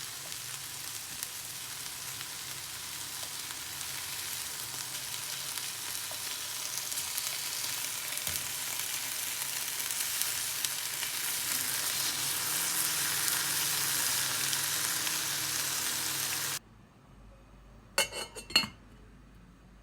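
Food sizzling as it fries in a pan, a steady hiss that grows slowly louder and then cuts off abruptly about three seconds before the end. Near the end come a few sharp knocks close together.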